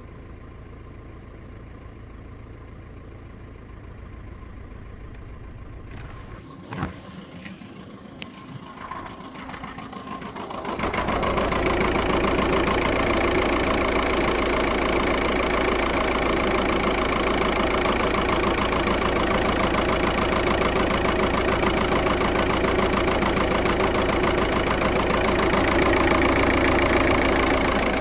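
Volkswagen Passat petrol engine idling with a logged cylinder 1 misfire (fault P0301 / 000769). A few sharp knocks and clatter come between about six and ten seconds in. From about eleven seconds the engine is much louder and steady.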